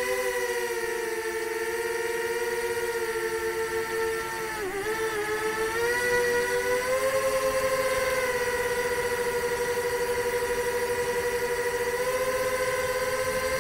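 Motors and two-blade propellers of a 5-inch FPV quadcopter (Nazgul 5 inch) in flight, a steady whine. The pitch dips briefly about four and a half seconds in, then climbs a little and holds steady again.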